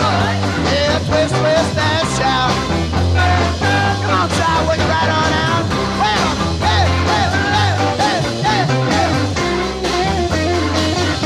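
Rock-and-roll band playing: electric guitars and bass over a steady beat, with bending melody lines from a lead guitar or voice.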